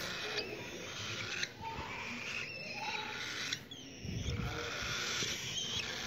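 Cockatiel chicks giving raspy, hissing calls in a run of phrases about a second long each, with faint whistly tones in them.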